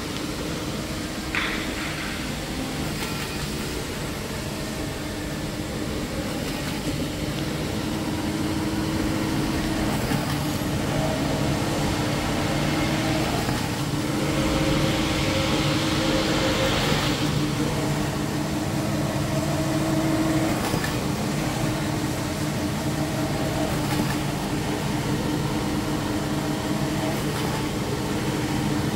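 Semi-automatic band saw cutter for maxi paper rolls running with a steady hum. About halfway through, a louder, higher noise lasts about three seconds as the blade cuts through the paper log.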